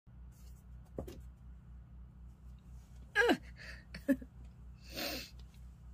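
A woman's small non-speech vocal sounds over a low electrical room hum: a short vocal sound falling in pitch about three seconds in, then a breathy exhale about five seconds in, with a faint click or two between.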